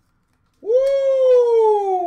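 A loud, drawn-out excited whoop, "Woo!", starting about half a second in, its pitch sliding down as it fades.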